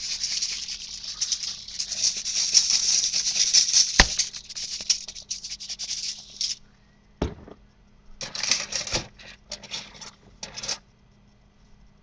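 Spice shakers shaken over raw pork steaks: a dense rattle and patter of seasoning salt for about the first six seconds, with one sharp click about four seconds in, then several short shakes of dried oregano near the end.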